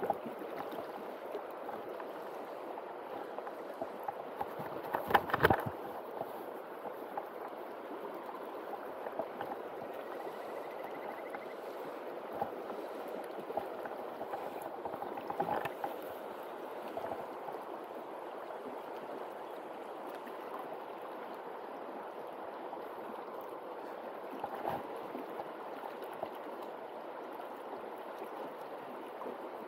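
Steady rush of a shallow, rippling river current, with a few brief knocks, the loudest about five seconds in.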